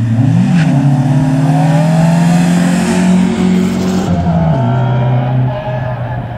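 Retro rally car engine revving hard on a special stage. The pitch steps up near the start, holds steady, then drops about four and a half seconds in as the driver lifts off, and the engine gets quieter near the end.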